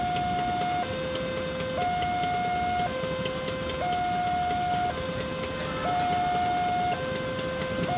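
Railway level-crossing warning alarm sounding a two-tone signal, a higher and a lower tone alternating about once a second, the signal that a train is approaching and the barrier is down.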